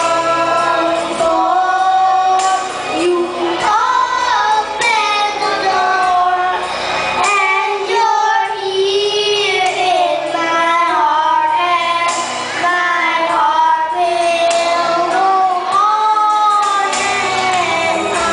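Two children, a boy and a girl, singing a duet into handheld microphones over backing music.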